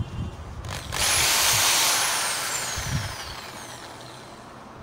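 Corded Bosch electric drill triggered briefly with the bit in free air: the motor starts sharply about a second in, then winds down with a steadily falling whine over the next few seconds.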